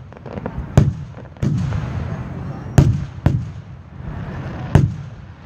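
Aerial fireworks shells bursting: five sharp booms, each trailing off in a low rumble.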